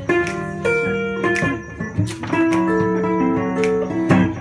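Acoustic guitar played without singing: chords struck every so often, with notes ringing on between the strokes.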